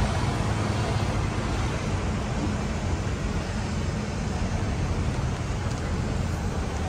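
Steady street traffic and engine noise with a low steady hum, as from a sightseeing bus moving through city streets.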